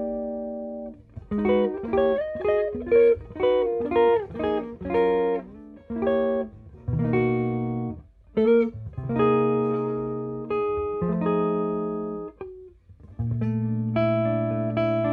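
Ibanez Artcore Expressionist AF95BS hollow-body archtop electric guitar played clean in a jazz style. A held chord dies away, then comes a quick run of single picked notes, then a series of sustained chords, ending on a chord left ringing.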